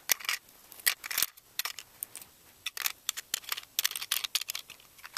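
Small plastic doll-sized school supplies clicking and clattering as they are put one by one into a small plastic tin, a quick irregular run of sharp clicks.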